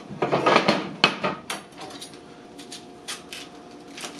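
Wooden cutting boards clattering as they are set down and shifted on a gas stovetop, then a kitchen knife knocking against a wooden board while cutting the core out of a red cabbage. A loud clatter in the first second, a few sharp knocks soon after, then lighter knife taps near the end.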